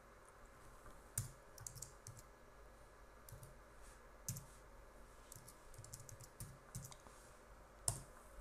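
Faint, irregular keystrokes on a computer keyboard: short bursts of typing with pauses between them.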